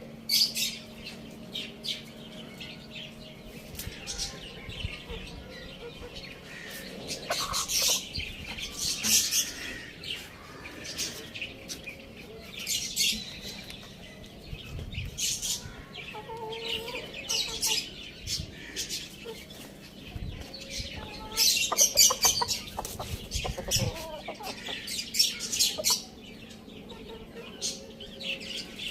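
Domestic chickens clucking as they feed, with many short, sharp, high-pitched sounds scattered throughout.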